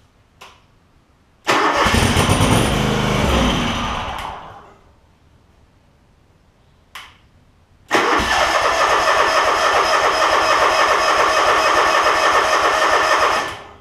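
John Deere LX188 lawn tractor's Kawasaki engine, primed with carb spray, is cranked twice. The first try lasts about three seconds and trails off. The second, about five seconds long, is steadier and stops suddenly near the end.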